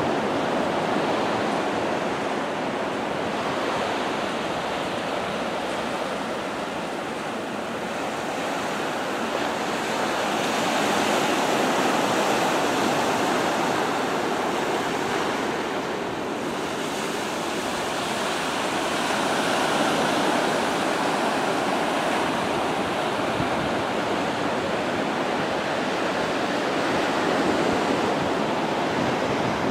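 Ocean surf washing steadily onto a sandy beach, a continuous rushing noise that swells and eases slowly.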